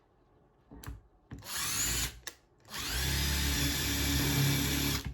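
Power drill run in short trigger bursts, the motor whining up in pitch as it spins up, then held for a steady run of about two seconds before a last brief burst.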